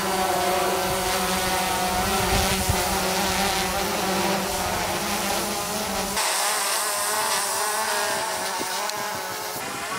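Quadcopter drone's propellers buzzing in flight, a steady whine of several pitches that waver slightly as the rotors change speed. A low rumble under it stops suddenly about six seconds in.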